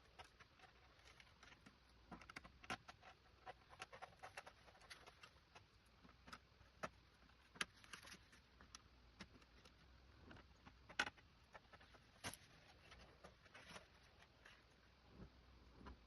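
Faint, irregular clicks and light taps of small hard parts, screws and plastic or metal pieces, being handled while an old LED TV is taken apart, with a few sharper ticks among them.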